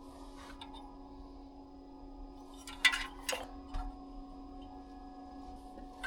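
Parts being handled during dashboard work: a short cluster of sharp clicks and knocks about three seconds in, over a steady low hum.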